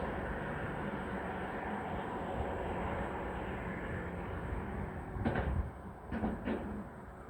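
Steady rumble of passing road traffic, slowly fading, with a few sharp knocks over the last couple of seconds.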